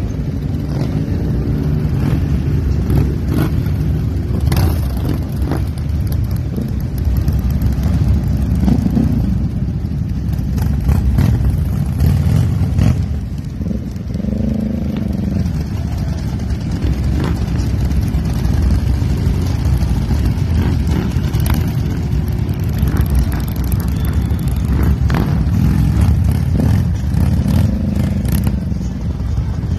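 A procession of motorcycles, mostly big cruisers, rolling past at low speed, many engines running at once. About fourteen seconds in, and again near the end, one bike revs up and back down.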